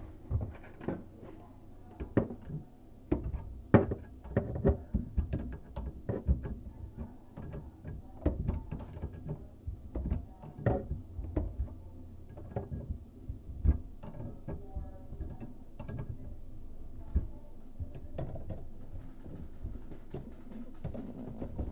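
Irregular clicks, knocks and clanks of a wrench and metal fittings being worked, as faucet supply lines are connected at the shutoff valves (supply stops) under the sink.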